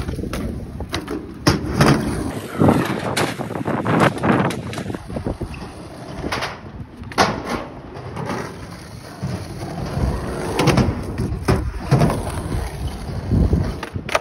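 Skateboard wheels rolling on concrete, with repeated sharp clacks and knocks as the board's tail pops and the board lands during flip tricks.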